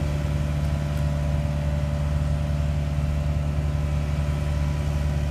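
Diesel engine of an asphalt paver running steadily while it lays blacktop.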